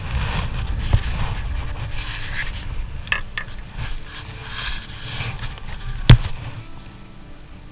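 Wind buffeting a body-worn action camera's microphone, with the angler's jacket sleeve and hands rubbing and scraping against the camera as he handles the line. There is one sharp knock against the camera about six seconds in.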